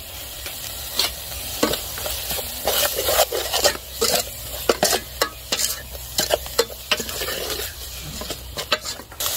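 Food sizzling in hot oil in a pan while it is stirred, with irregular scrapes and knocks of the utensil against the pan.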